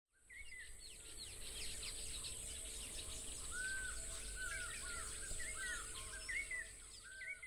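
Birdsong ambience: many birds chirping and giving short rising and falling whistles over a steady high hiss and a low rumble.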